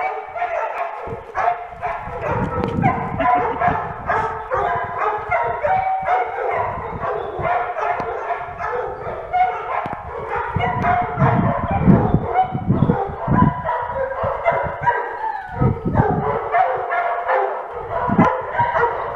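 Dogs in rough play, an Irish wolfhound and smaller puppies, barking and yipping over and over in quick succession, with short pitched calls overlapping throughout.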